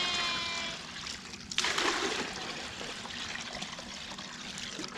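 Fresh water running and splashing as it is poured out for the sheep, with a short break about a second and a half in before it resumes.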